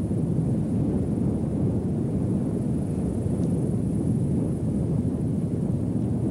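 Wind buffeting the camcorder's microphone outdoors: a steady low rumble.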